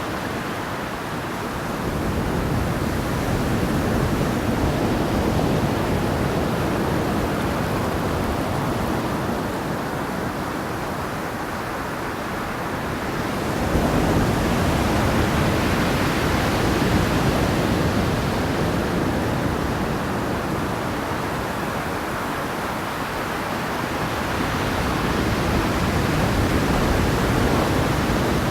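Ocean waves washing ashore: a continuous rushing surf that swells and subsides slowly, with surges building about 2, 14 and 24 seconds in.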